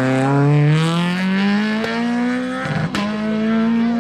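Peugeot 208 R2 rally car's 1.6-litre four-cylinder engine accelerating hard, its note rising steadily. About three-quarters of the way through, the note breaks with a sharp click and drops to a lower pitch, then begins climbing again.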